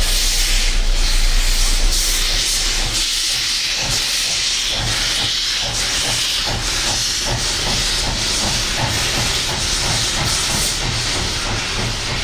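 Steam locomotive letting off steam in a loud, continuous hiss. About halfway through, a regular beat of roughly three pulses a second joins the hiss.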